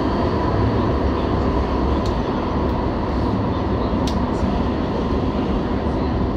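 Alstom Citadis Spirit light rail train running, heard from on board: a steady rumble of wheels on rail with a faint whine. Two sharp clicks come about two and four seconds in.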